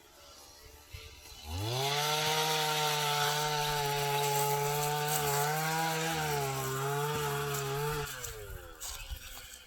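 A small motor or engine spins up quickly, runs at a steady high pitch for about six seconds with slight wavers, then winds down.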